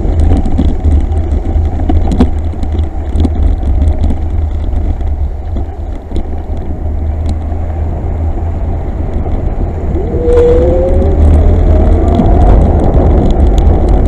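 Wind rumbling on the microphone of a camera on a moving rider, with scattered ticks and knocks from the ride. A whine rises in pitch from about ten seconds in.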